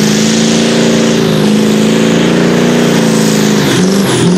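Competition pulling tractor's engine running at high, near-steady revs under load. Its pitch drops sharply near the end.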